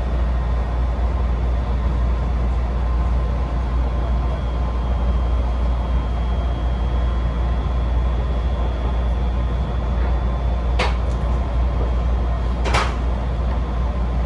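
Steady low hum and rumble of a JR Kansai Line train, with a faint high whine in the middle and two sharp knocks about two seconds apart near the end.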